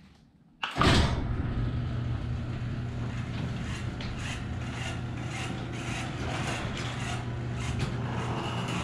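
Electric overhead garage door opener starting with a sudden clunk about a second in, then running steadily with a low hum and scattered clicks as the sectional door rolls up.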